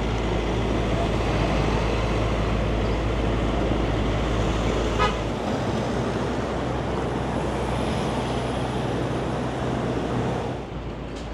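City traffic noise: cars running on the road in a steady wash of sound, with a low rumble. About a second before the end the sound drops noticeably in level.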